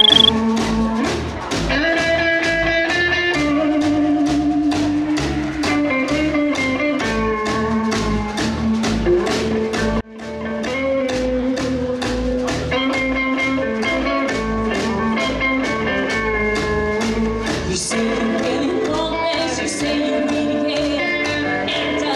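Rockabilly music from a live band: upright bass, electric guitar and a singing voice over a steady beat. It opens with a short high beep, breaks off about ten seconds in, and music with the same steady beat carries on.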